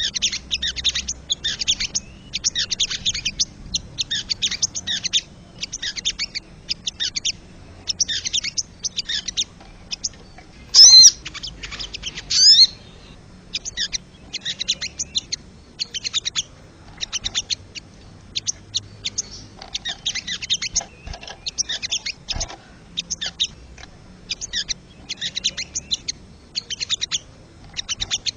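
Wild sogon calling: repeated rattling phrases of rapid, high-pitched notes, about one phrase a second. Two louder sweeping calls come about 11 and 12 seconds in.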